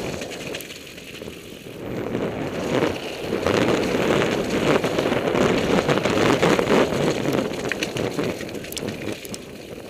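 Mountain bike riding fast down a rough forest trail: a steady rumble of the tyres over dirt and stones, with many rattling clicks from the bike over the bumps. It grows louder about three and a half seconds in and eases off near the end.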